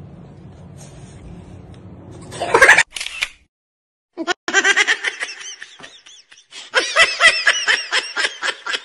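Hearty laughter in quick, high-pitched, repeated bursts, starting about four seconds in after a short silence. Before that there is a low steady hum and one brief loud noise.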